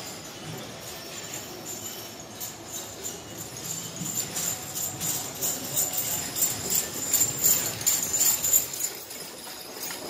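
Metal jingling from the harness of a team of draft horses trotting past with a wagon. It grows louder over the first half and is loudest a little past the middle.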